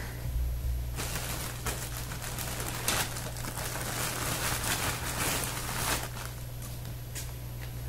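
Rustling and small clattering of things being handled and searched through off to the side, from about a second in until about six seconds. A steady low hum runs underneath.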